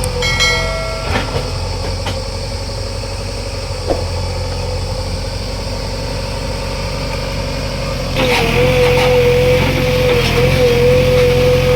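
JCB 3DX backhoe loader's diesel engine running steadily. About eight seconds in it gets louder, and a slightly wavering whine joins it.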